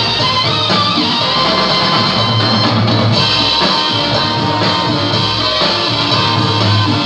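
Loud dance music with guitar and drums and a steady beat.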